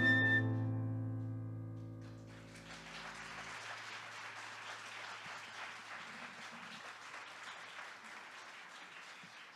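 The last notes of an instrumental ensemble ring out and fade over about two seconds, then an audience applauds steadily.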